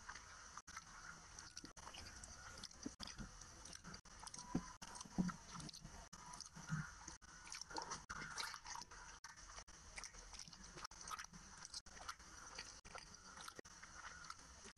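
Close-miked chewing and mouth sounds of a person eating rice and curry by hand, with many irregular short clicks and smacks.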